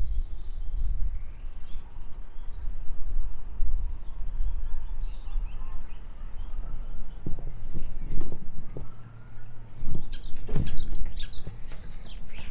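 Birds chirping faintly over the low rumble of a bicycle ride, with a run of sharp clicks and rattles near the end.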